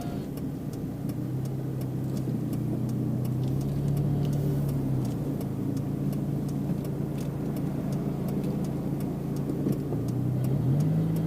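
Mitsubishi Pajero Mini's 660 cc four-cylinder engine heard from inside the cabin while driving, over steady road noise. Its hum rises in pitch about three seconds in, drops back around five seconds, and rises again near the end. A faint regular ticking runs underneath.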